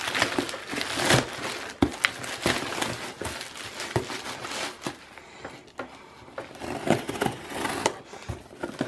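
Black plastic courier bag crinkling and crackling as it is pulled back off a cardboard box, with many sharp crackles, busiest in the first half and again near the end.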